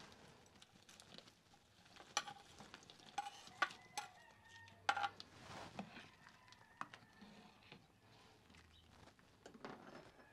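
Dried shrimp scraped out of a clay bowl with a plastic spoon into a pot of broth, the spoon and bowls knocking and clinking on the earthenware, followed by quieter stirring. A handful of sharp clinks, some briefly ringing, fall in the first half.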